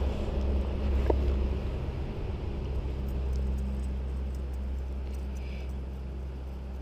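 Steady low rumble with a faint hum, and light scattered ticking as a spinning reel is cranked to bring in a hooked fish.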